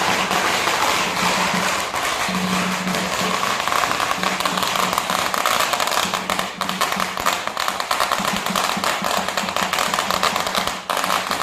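A long string of firecrackers crackling in a rapid, unbroken stream, dying down near the end. A low steady tone comes and goes underneath.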